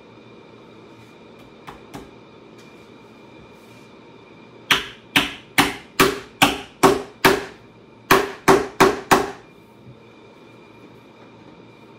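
Hammer nailing a metal seat strainer down onto a saddle tree: two light taps, then a quick run of eight sharp strikes at about two and a half a second, a short pause, and four more.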